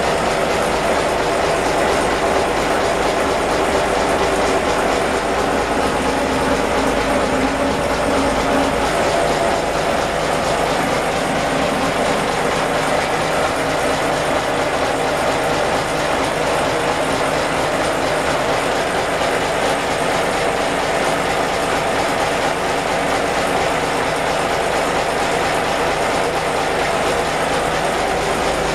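Inboard marine diesel engine idling, a steady, unchanging mechanical running sound.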